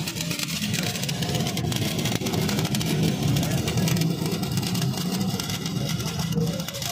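Stick-welding arc crackling and sizzling without a break as a bead is run on a steel tube, over a steady low hum.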